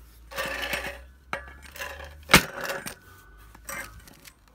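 Metal garden rake scraping and knocking on a concrete slab, with one loud metallic clank a little over two seconds in and a faint ring after it.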